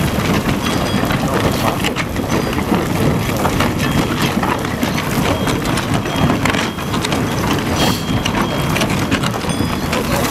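Herrenknecht tunnel boring machine breaking through the tunnel face: a steady low rumble of the cutter wheel grinding in the rock, with a continuous crackle of crumbling shotcrete and rock debris pouring down the face.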